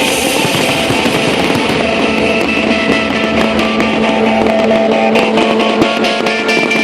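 Guitar-led music playing loudly, with a dense crackle under it for the first two seconds; a fast, steady beat comes in about five seconds in.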